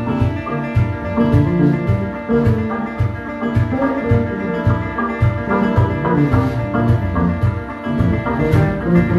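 Live band playing: acoustic guitar over electric bass and a drum kit, with a steady beat and a cello among the strings.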